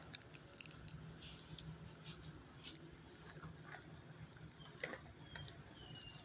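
Near silence: quiet room tone with a low steady hum, faint scattered ticks and clicks, and a brief high falling squeak near the end.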